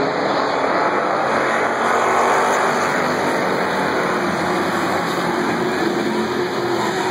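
A pack of dirt-track race cars racing flat out around the oval, their engines merging into one loud, steady din.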